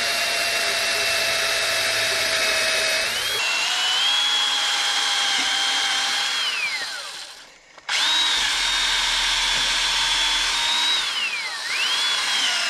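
Corded electric drill drilling holes in a fiberglass boat transom: a steady motor whine that winds down about six seconds in, starts again a second later, then ends with a short burst near the end.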